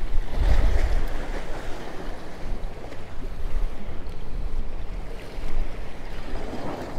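Wind buffeting the microphone over waves washing against the jetty rocks, the wash swelling about a second in and again near the end.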